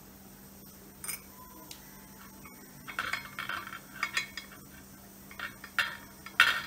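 Light metallic clinks and scrapes of a stainless-steel spoon and idli mold as oil is spread into the mold's cups, coming in short clusters, with the loudest sharp clink near the end.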